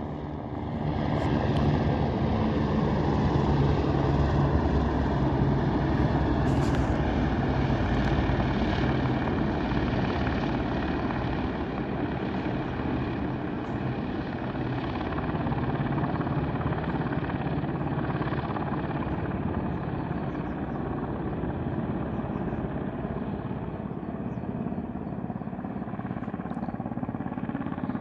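Helicopter in flight: steady, unbroken engine and rotor noise with a low hum.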